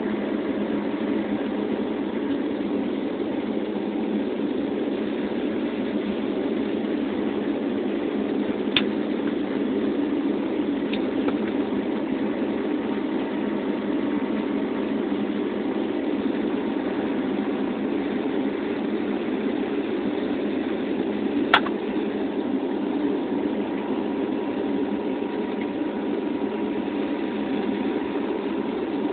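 Steady drone of a turboprop airliner's engines and propellers heard from inside the passenger cabin, with a couple of brief clicks, the sharpest about two-thirds of the way through.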